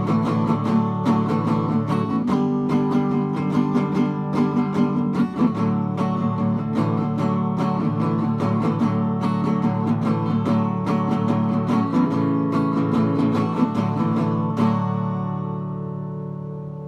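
Acoustic guitar strumming the closing bars of a country song, ending on a final chord that rings out and fades near the end.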